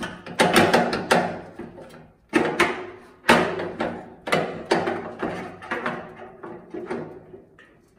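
Metal side shelf clanking against the flat top grill's steel frame and brackets as it is worked into place: a run of sharp knocks, each ringing briefly.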